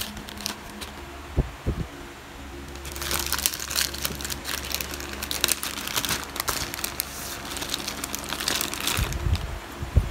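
Packaging being handled and unwrapped, crinkling and rustling for several seconds after a couple of soft knocks.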